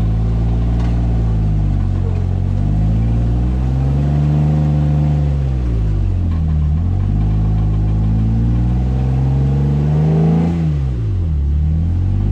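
Off-road 4x4 engine working at low speed on a rock-crawling trail. Its pitch rises and falls in slow swells as it revs up and eases off, dropping sharply about seven and eleven seconds in.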